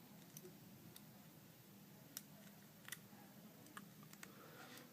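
Near silence with a few faint, short clicks and taps of small plastic phone parts being handled as the volume button is fitted into the side of an HTC phone's frame.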